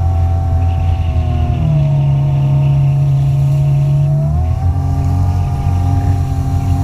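Jet ski engine running under way, the pitch dropping as the throttle eases about two seconds in and climbing again about four and a half seconds in.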